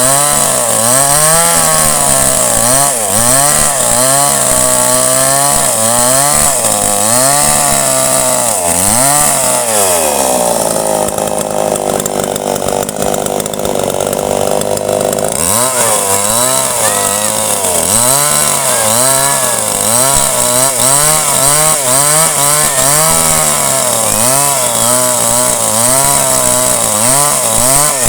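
A chainsaw with a 20-inch bar running hard, its engine speed rising and falling about once a second. Around the middle it settles to a lower, steadier speed for about five seconds, then starts rising and falling again.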